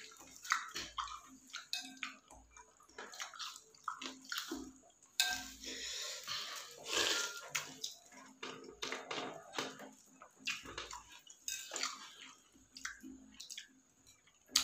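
Close-up eating sounds of seblak: wet chewing and slurping in irregular bursts, with many short clicks.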